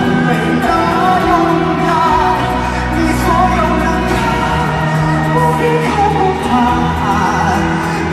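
A male pop singer singing live into a microphone over band accompaniment with bass.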